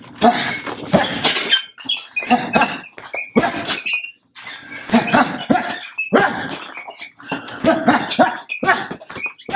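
Punches and kicks landing on a heavy bag in quick combinations, each strike a thud or slap paired with a sharp exhaled breath, in clusters of several hits.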